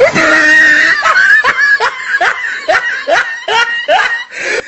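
High-pitched laughter: one long high note, then a quick run of short laughs, a little over two a second.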